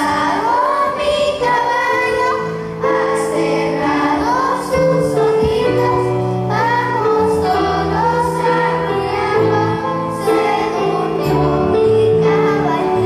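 Children's choir singing a song with instrumental accompaniment, held low notes under the sung melody, changing every second or two.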